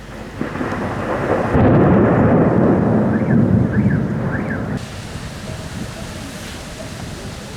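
Thunder over a heavy downpour: a deep rumble builds about half a second in, stays loud for about three seconds, then fades back to the steady hiss of rain.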